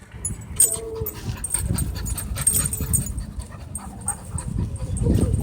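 Dog panting.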